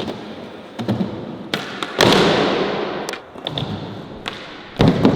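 Skateboard clacks and a loud landing impact about two seconds in, followed by the wheels rolling on concrete and fading, then another hard impact of the board near the end.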